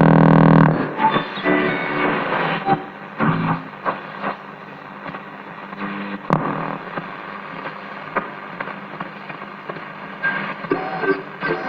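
Zenith 5S-29 tube radio being tuned between stations: static and hiss with short steady whistles and broken snatches of signal. There is a loud burst at the start and a sharp click about six seconds in.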